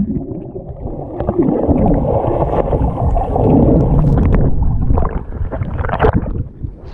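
Sea water sloshing and rumbling, heard muffled through a submerged camera, with sharp splashes in the last couple of seconds as the camera breaks the surface of the waves.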